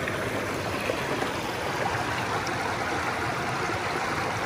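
Shallow stream water running over rocks, a steady rush of water close to the microphone.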